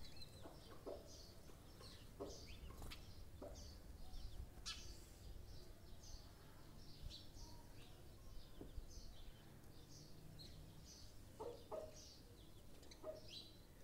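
Faint bird chirping: many short, high chirps scattered throughout, over a low background hum.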